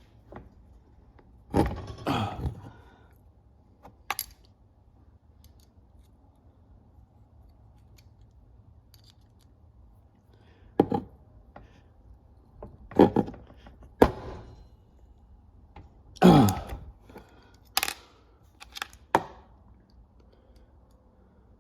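Metal clicks, clanks and thunks of a Knipex pliers wrench clamping and re-gripping a copper penny and being pressed against a table edge, with a few scrapes. About eight separate knocks come at uneven intervals with quiet gaps between.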